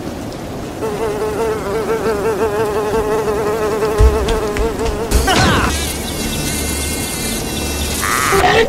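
Buzzing of a flying insect, a steady drone wobbling quickly up and down in pitch. A low thump comes about four seconds in; just after it the buzz rises sharply and gives way to a higher, thinner buzz.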